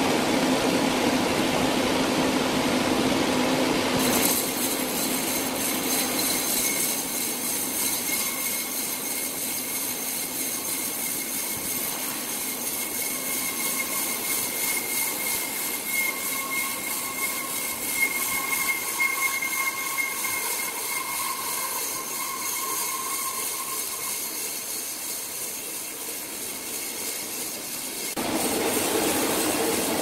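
Sawmill machinery running: a steady, noisy mechanical sound with a thin, high whine over it, which changes abruptly about four seconds in and again near the end.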